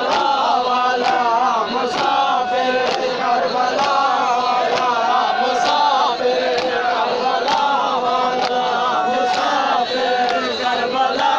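A crowd of men chanting a noha, a Muharram lament, in unison. Sharp strikes of hands on chests (matam) land about once a second and keep the beat.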